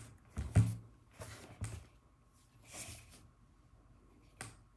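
Hands handling a sneaker and a smartphone: a few scattered light knocks and clicks, the loudest about half a second in, with a sharp click near the end.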